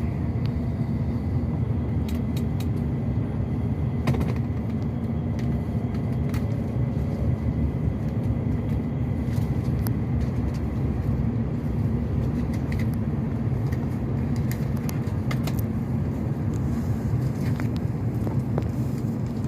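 Steady low rumble inside the passenger cabin of a Joetsu Shinkansen train running on the line, with a few faint clicks scattered through it.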